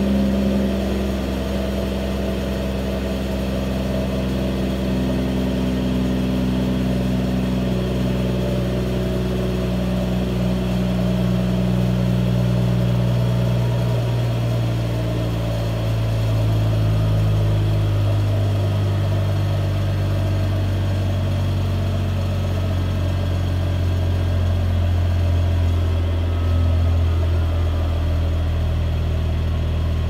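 Exhaust of a 2019 Mercedes-AMG CLS 53's turbocharged inline-six idling fast just after a cold start. Its pitch eases lower in steps, about halfway through and again near the end, as the idle settles.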